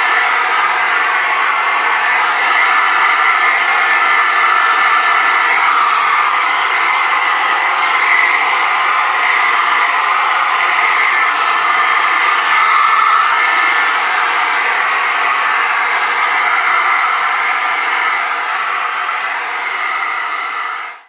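Hairdryer running steadily, humming and buzzing over a rush of air; it cuts off at the very end.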